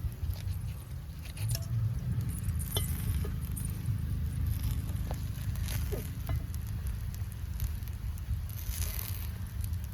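Gunta ponganalu batter frying in a paniyaram pan: a faint sizzle with scattered light clicks and taps, over a steady low rumble.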